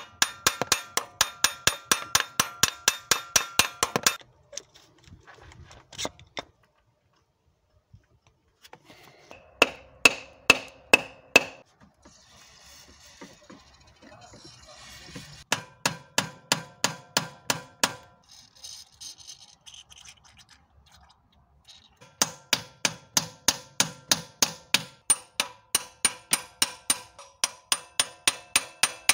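A hammer striking a brass drift held against a seized distributor on a Volvo B230F engine, in runs of quick, evenly spaced metal strikes that ring, about four a second. Twice in the middle the runs stop for a few seconds of aerosol spray hissing onto the distributor.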